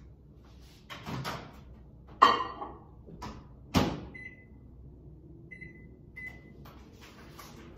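Countertop microwave being worked: a loud clatter about two seconds in, the door shutting with a sharp snap just before four seconds, then three short keypad beeps as the cook time is set.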